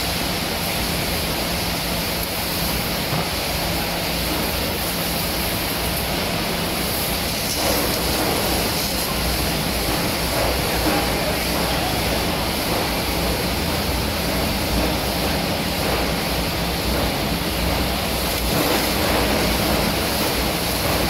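Metal chip shredding line running: a steady, loud mechanical noise from the plate conveyor carrying metal swarf up into the metal chip shredder. A faint steady hum drops away about seven seconds in.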